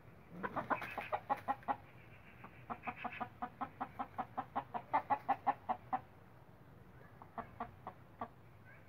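A chicken clucking in quick, even runs of about six clucks a second: a short run, a longer one, then a few clucks near the end.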